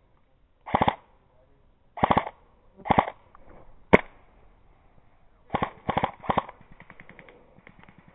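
Airsoft guns firing short full-auto bursts: six quick bursts of rapid clicking shots, one at first, then two, then three close together, with a single sharp crack about four seconds in.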